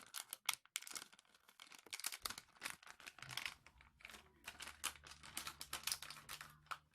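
Crinkling and crackling of a Lego minifigure blind-bag pack being squeezed and pulled, in irregular bursts, as it is struggled with by hand and will not tear open.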